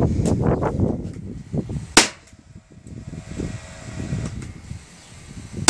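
A nail gun firing twice: sharp single cracks about two seconds in and at the very end, driving nails into the wooden pieces of a homemade cat wheel. A muffled rumble fills the first second or two.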